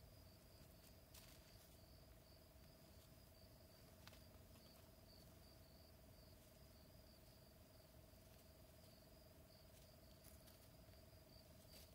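Faint grassland ambience: a quiet, fast pulsing insect trill under a faint steady hum, with a few soft clicks.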